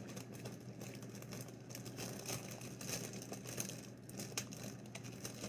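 Faint rustling and crinkling of paper and plastic wrapping as comics are handled on a desk, with a few soft ticks.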